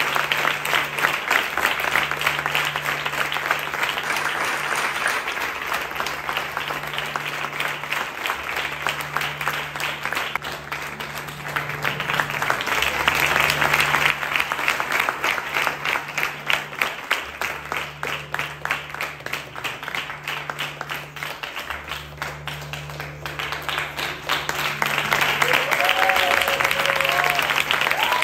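Audience applauding: dense, steady hand-clapping that swells about halfway through and again near the end, with a few voices calling out near the end.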